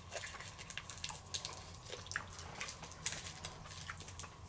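Faint, scattered wet clicks of someone chewing a soft, sticky milk caramel candy.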